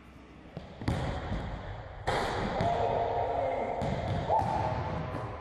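A basketball bouncing and striking during dunk attempts, with a sharp knock about a second in and a louder stretch from about two seconds on.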